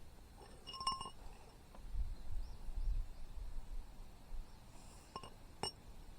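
Light metallic clinks with a brief ring: a cluster about a second in and two more near the end.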